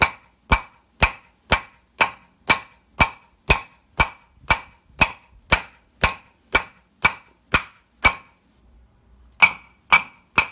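Hammer blows on a 17 mm socket set against the inner race of a 1996 Geo Metro's outer rear wheel bearing, driving the bearing out of the brake drum. Sharp metallic strikes with a short ring, about two a second, then a pause of about a second near the end and three more blows.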